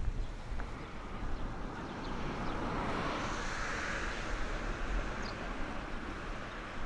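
A car passing on the road, its tyre noise swelling to a peak about halfway through and then fading away.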